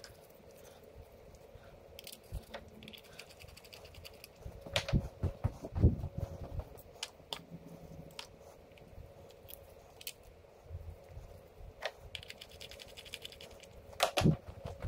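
Hand tools at work on spark plugs being put back into the engine: two quick runs of fine clicking, a few seconds in and again near the end, among scattered knocks and clinks.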